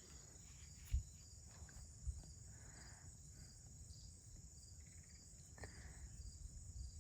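Crickets chirping steadily in the background, with a light knock about a second in and another a second later from the shotgun being handled.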